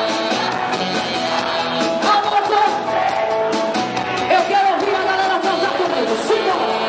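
Live band playing amplified music, with electric bass and drums keeping a steady beat under a singer's voice.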